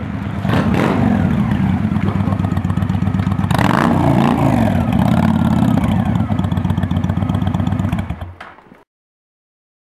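Honda Black Widow 750's V-twin engine through an aftermarket Cobra exhaust, running with a steady pulsing beat and a brief louder rev about three and a half seconds in; the sound fades out near the end.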